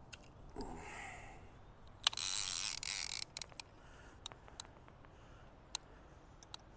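Fishing tackle being handled: about a second of loud scraping or rustling, followed by several small, sharp clicks, as of hooks and a diver knocking together.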